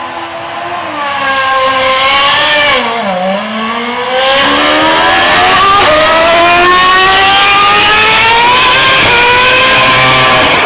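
Lotus E20 Formula One car's 2.4-litre Renault V8 at high revs: the pitch climbs, drops sharply about three seconds in as the throttle comes off, then the car accelerates hard through the gears, its screaming note rising with brief dips at each upshift.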